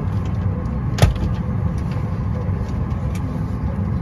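Steady low cabin rumble inside a Boeing 737-8 MAX standing at the gate, with one sharp knock about a second in.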